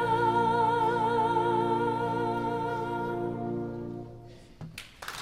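Female vocalist holding a long final note with vibrato over a concert band's sustained closing chord. Both fade out about four seconds in, and applause breaks out right at the end.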